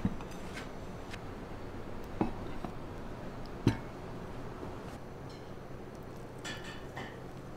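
Ceramic serving plates set down on a table: a few short knocks, the loudest about three and a half seconds in, over a steady low room hum. Near the end comes a brief scrape as a metal spoon digs into fried rice on a plate.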